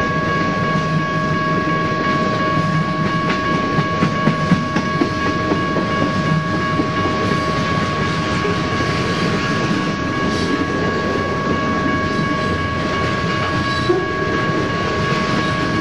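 BNSF freight train cars rolling past at speed: a continuous rumble of wheels on rail with scattered clicks over the joints. A steady high-pitched tone runs underneath throughout.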